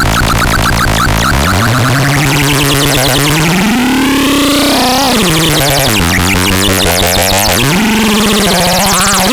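Loud, buzzy electronic synthesizer sound, its pitched tones sliding slowly upward to a high point about four seconds in, dropping sharply, then climbing again near the end over a rapid pulsing buzz.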